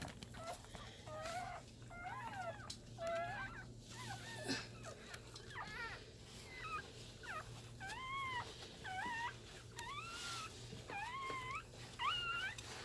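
Newborn puppies whimpering and squealing over and over, short high-pitched cries that rise and fall in pitch, about one a second. A steady low hum runs underneath.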